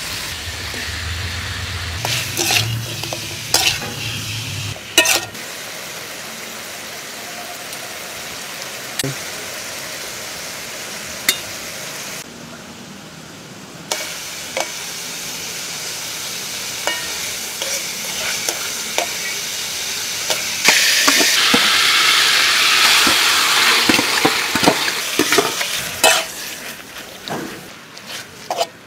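Chinese broccoli and then beef stir-frying in a metal wok: a steady oily sizzle, with tongs and a metal spatula clicking and scraping against the pan. The sizzle grows louder past the middle, then fades near the end.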